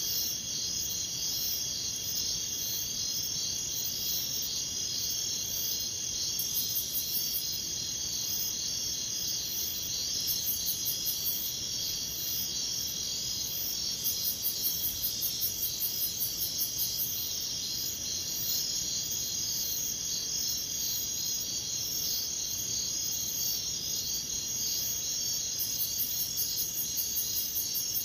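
A night chorus of crickets and other insects chirping steadily. Every few seconds a louder, rapidly pulsing insect call joins in for one to three seconds, at about five pulses a second.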